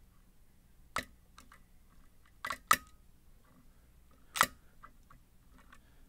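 Hook pick and tension wrench working the pins of a Scorpion CX-5 cylinder lock: a few sharp clicks, two close together near the middle, with fainter ticks between.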